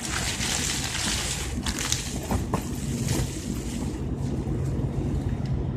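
Wind gusting over a tent cot's rain fly with rain falling on it: a steady low rumble of wind, with scattered light taps of drops on the fabric.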